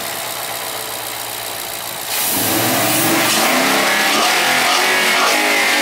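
Ford Mustang GT's 5.0L Coyote V8 idling steadily, then revved up about two seconds in and held at raised revs, clearly louder. This is the run-up after a thermostat replacement and coolant refill.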